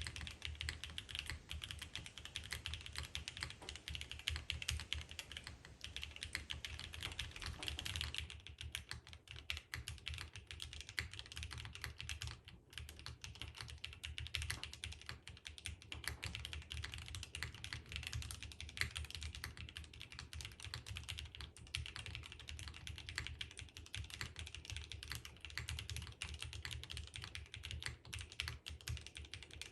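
Continuous fast typing on a gasket-mounted F1-8X v2 mechanical keyboard with lubed and filmed Prevail Epsilon linear switches, an aluminium plate and ABS doubleshot keycaps: a dense stream of keystroke clacks with the occasional heavier stabilised key. About eight seconds in the sound turns a little duller and softer.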